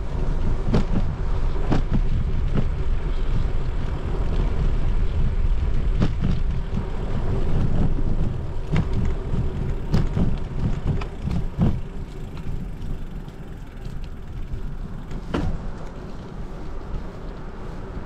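Bicycle ridden along a trail: a steady low rumble of tyres and wind on the microphone, with sharp knocks and rattles as the bike hits bumps, most of them in the first twelve seconds, growing somewhat quieter after that.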